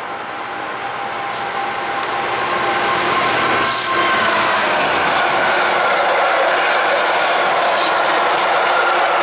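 Class 66 diesel freight locomotive, with its EMD two-stroke V12, approaching and passing at speed. It grows louder as it nears, with a brief rush as the locomotive goes by about four seconds in. Then comes the steady rumble of a long train of covered freight wagons rolling past on the rails.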